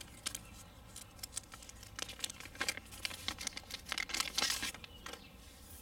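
Clear plastic packaging crinkling as it is handled and pulled at, in irregular sharp crackles that come thickest about four seconds in.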